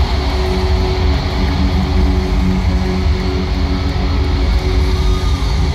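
Live band music with electric guitar, played through a large sound system: loud and continuous, with heavy bass and a held note.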